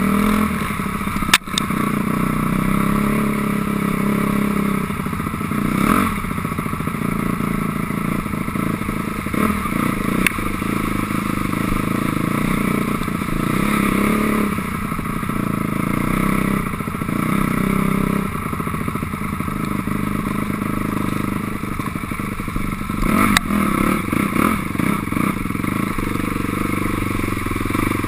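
2006 Honda CRF250R dirt bike's single-cylinder four-stroke engine running under changing throttle, rising and falling as it is ridden. Two sharp knocks break through, one about a second in and another late on.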